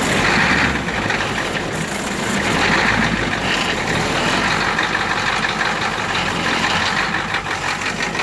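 7.3-litre diesel truck engine just fired on a flame drawn in at the air intake instead of ether, its glow plugs too weak to start it. It runs noisy and uneven, surging louder twice in the first three seconds, then settles to a steadier rough idle.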